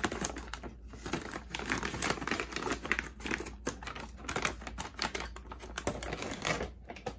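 Plastic food pouch crinkling and crackling as it is handled and cut open with scissors, a dense, irregular run of small crackles and snips.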